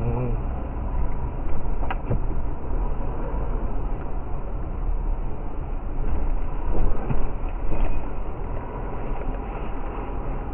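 Steady road and engine rumble heard from inside a moving vehicle on the highway, with a sharp click about two seconds in.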